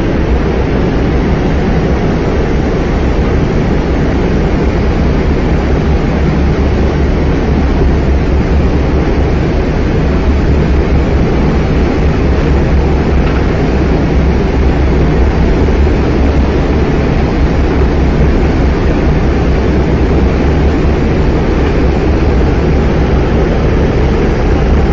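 Steady, loud low rumble with a hiss over it, unchanging throughout.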